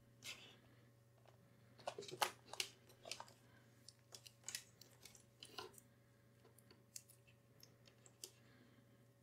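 Faint, scattered clicks and taps of a digital multimeter being handled: its rotary switch turned on and its test leads picked up and moved about.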